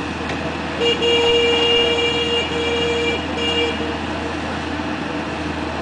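A horn sounds about a second in and is held for about three seconds, broken twice near its end. Under it runs the steady low drone of the amphibious excavator's diesel engine.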